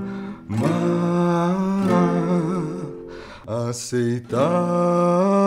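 A man singing a slow Portuguese ballad to his own acoustic guitar accompaniment, holding long notes that waver in pitch, with a short break for breath a little after the middle.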